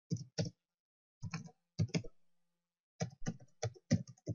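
Computer keyboard being typed on: a few separate keystrokes early on, then a quick flurry of keystrokes about three seconds in.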